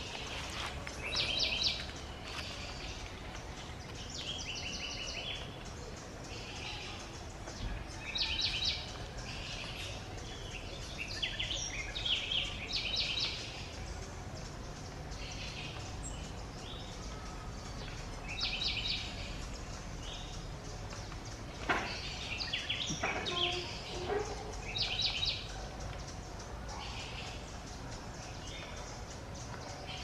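Small parrots giving short, high calls, one burst every few seconds, over a steady low background hum. Around two-thirds of the way through, a lower call slides downward in pitch.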